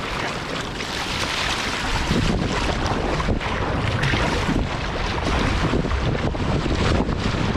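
Paddle strokes splashing and river water rushing past a slalom kayak's hull as it is paddled hard through current, with wind buffeting the microphone.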